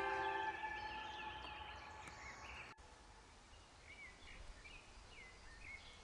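Music fades out over the first couple of seconds, then after a sudden cut small birds chirp faintly, short calls at irregular intervals over quiet outdoor background noise.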